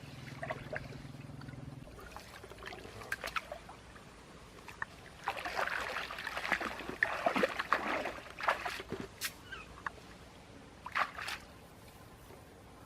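Water splashing and sloshing, loudest in a stretch around the middle, with scattered clicks. A steady low hum stops about two seconds in.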